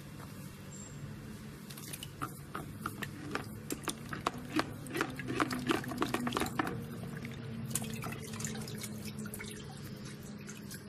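Dough rings sloshing and splashing in a bucket of grape molasses and water as a metal strainer is swished through it and lifted, with liquid dripping back into the bucket; the splashing is busiest in the middle. A steady low hum runs underneath.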